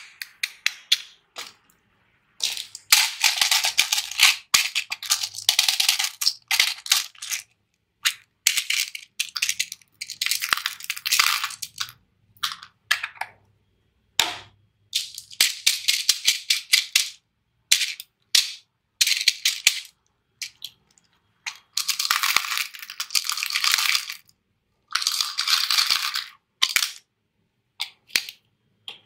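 Small hard colourful pieces poured into plastic toy bathtubs, clattering in repeated pours. The pours last from a moment to about five seconds, with short gaps between them; the longest comes about three seconds in.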